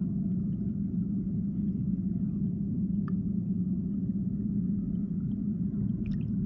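Steady low underwater rumble of flowing river water, with a faint click about three seconds in and another near the end.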